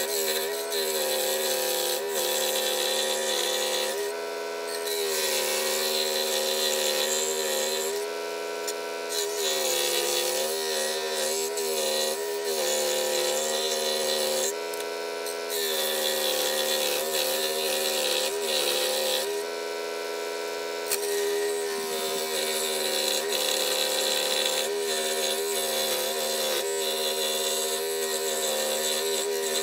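16-inch variable-speed scroll saw running, its fine blade cutting a thin purpleheart wood blank along a paper pattern: a steady motor hum under a rasping cut. The cutting noise drops back for about a second four times, as the piece is turned, while the motor keeps running.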